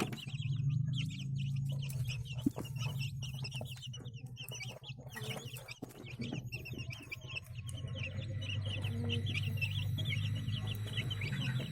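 A flock of young chickens, about 25 days old, cheeping continuously in short high calls over a steady low hum.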